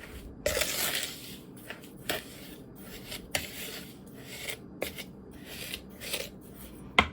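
A utensil stirring a dry mix of Epsom salt, washing soda and borax in a bowl: gritty scraping strokes, the loudest about a second in, then softer intermittent scrapes.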